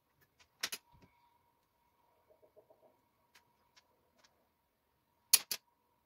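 Pearl beads clicking against each other and the tabletop as a beaded strand is handled: a pair of sharp clicks about half a second in and a louder double click near the end, with a few small ticks between.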